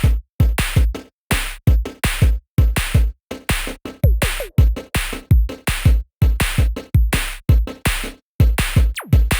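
Electronic background music with a steady drum-machine beat: sharp hits about three times a second, each with a deep bass thump.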